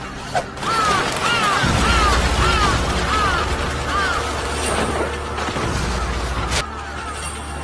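Anime sound effect of a flock of crows cawing: about six short falling caws in quick succession over a steady low rush from the swarm, which cuts off suddenly near the end.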